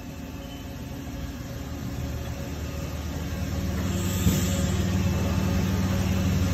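Haas UMC-750 five-axis CNC machining center running with a steady low mechanical hum. The hum grows louder over the first few seconds, then holds.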